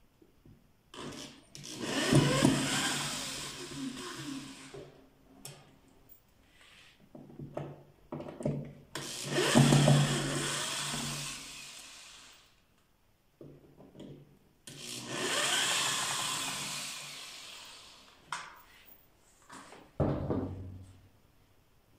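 Corded electric drill with a screwdriver bit backing screws out of a plastic speaker cabinet, running in three bursts of a few seconds each, each starting loud and tapering off. A short knock near the end.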